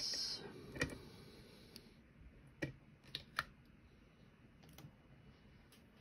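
A few sharp, light clicks and metal knocks, about four in the first three and a half seconds, from the lock cylinder and bench vise being handled as the picked lock is taken out of the vise.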